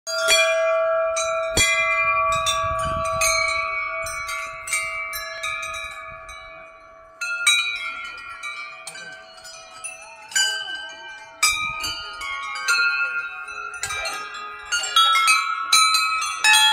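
Hindu temple bells being struck again and again. Several bells of different pitches ring out and overlap, each with a long ringing decay, and a new strike comes every second or two.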